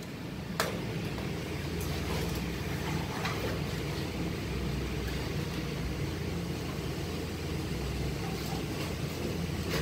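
A steady low machine drone, like an engine or fan running, with a few faint ticks from tools being handled.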